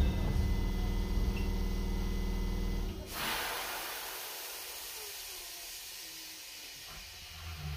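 Stopped electric train: a steady low machine hum stops abruptly about three seconds in, and a loud hiss of escaping air follows and slowly fades.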